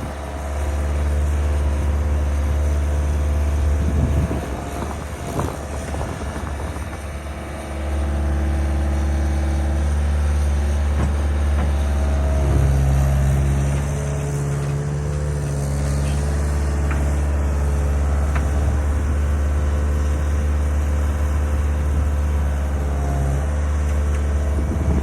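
Skid steer's diesel engine running, a steady low drone that eases off for a few seconds and comes back up about eight seconds in.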